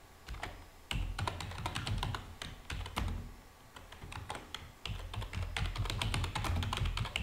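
Typing on a computer keyboard: a quick, irregular run of key clicks, thinning out briefly about halfway through before picking up again.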